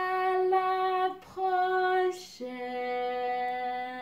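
A woman singing the end of a French goodbye song: two held notes at the same pitch, then a longer, lower held note from about halfway through.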